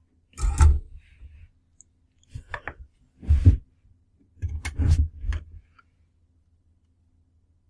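A few short clicks and bumps of small parts and wires being handled on a workbench, over a faint steady hum; it goes quiet after about six seconds.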